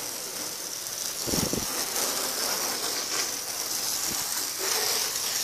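Foam gun with its soap canister popped off spraying a strong jet of water onto a pickup truck's bed and body panels: a steady hiss and splatter of water on metal, rinsing off the soap.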